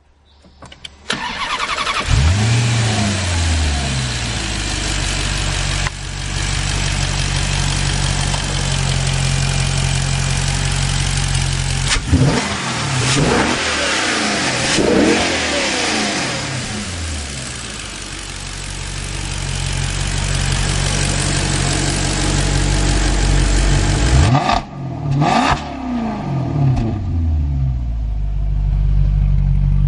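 Maserati GranTurismo V8 engine starting with a short flare of revs, then idling steadily. Several quick throttle blips rise and fall about halfway through, and two more come near the end before it settles back to idle.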